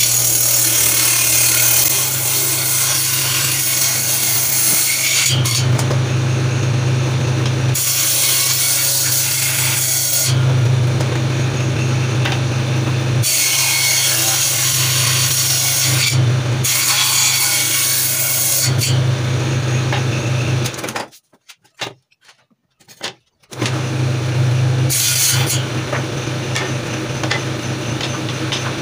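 Table saw running, its motor humming steadily while the blade skims the weathered surface off a board in several passes, each a loud rasping cut lasting a few seconds. The sound cuts out abruptly for about two seconds around two-thirds through, then the saw runs and cuts again.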